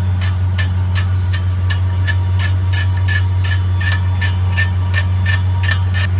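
Old Ford F-250 driveline running underneath the truck: a steady low hum with a sharp, even click about three times a second. This is the noise the owners are tracing along the driveshaft, toward its universal joints and center bearing.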